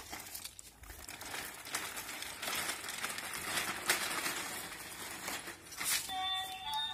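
Plastic wheels of a baby walker rattling and crackling over brick pavers, an uneven stream of small clicks. Background music with steady notes comes in near the end.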